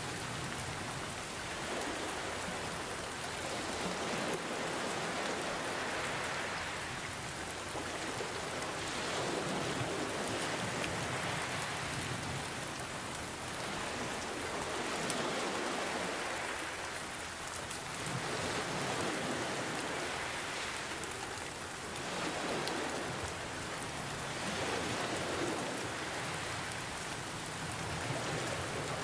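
Steady rain mixed with gentle ocean waves, the sound swelling and easing every few seconds as the waves wash in.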